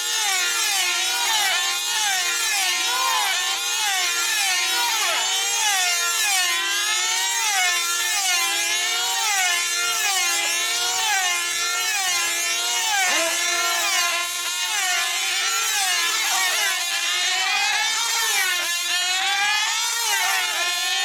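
Several F2C team-race control-line model aircraft flying laps together, their small high-revving diesel engines giving a shrill whine. The pitch of each rises and falls over and over as the models circle the pilots.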